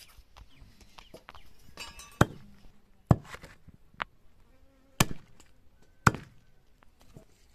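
Heavy cleaver chopping through a whole country chicken into a wooden stump chopping block. Four loud chops and one lighter knock come roughly a second apart, starting about two seconds in.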